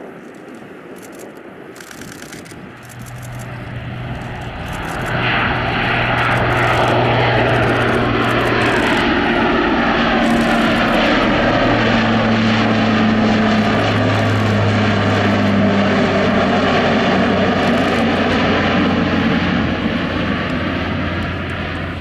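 Four Rolls-Royce AE 2100 turboprops of a Lockheed C-130J Hercules, with six-bladed propellers, at climb power after takeoff. The sound grows louder over the first few seconds into a loud, steady propeller drone. Its low hum drops slightly in pitch partway through as the aircraft passes, then the drone eases a little near the end.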